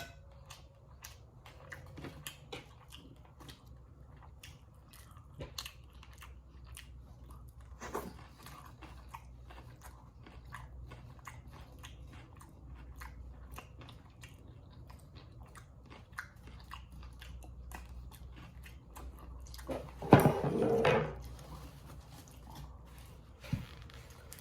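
Close-miked chewing and biting, with many short wet mouth clicks and smacks throughout. A louder sound lasting about a second comes about twenty seconds in.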